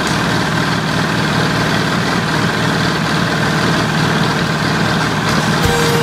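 Ford 861 Powermaster tractor's four-cylinder engine idling steadily while the tractor stands still. A music track starts near the end.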